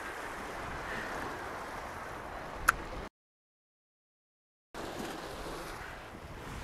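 Wind on the microphone and sea surf, a steady hiss, with one sharp click about two and a half seconds in. The sound cuts out completely for over a second just after the click, then the wind and surf return.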